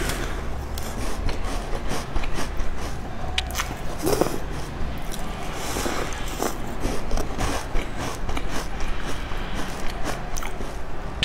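A person biting and chewing crumbly cookies softened in milk, close to the microphone, with scattered short clicks and smacks of the mouth.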